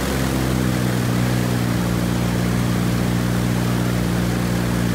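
Viking Aircraft Engines Honda-based four-cylinder engine on a high-wing light aircraft, running steadily with its propeller turning in a ground run.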